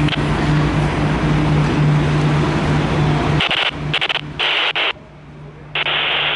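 Steady railway engine hum at a constant low pitch that cuts off abruptly about three and a half seconds in, followed by a handheld radio's squelch hissing open and shut in short bursts of static.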